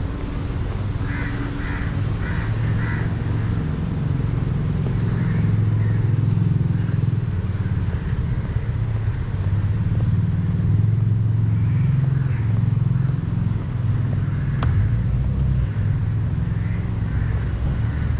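Outdoor street ambience: a steady low rumble of the city, with a few short bird calls in quick succession about a second in and scattered fainter ones later.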